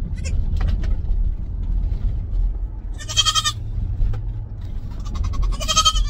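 A goat bleats twice inside a minivan cabin: one high call about halfway through and another near the end, over a steady low rumble.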